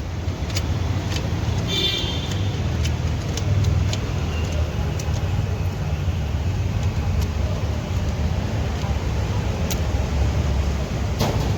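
Scattered sharp metallic clicks from hand tools at work on the cylinder-head bolts, over a steady low rumble.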